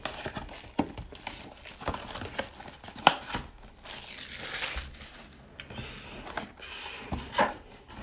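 Plastic wrapping crinkling and tearing in irregular bursts, with sharp clicks, as a sealed trading-card hobby box is unwrapped and opened.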